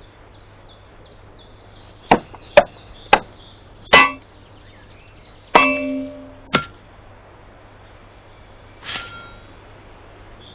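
Small entrenching shovels thrown and striking a wooden target, as cartoon sound effects: four sharp hits in quick succession, then a louder metallic clang that rings on, one more short hit, and a softer sound near the end.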